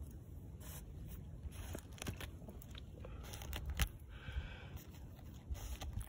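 Short-beaked echidna digging in roadside gravel and soil. Its claws and snout make irregular scratches and small clicks of shifting stones, the sharpest a little under 4 seconds in.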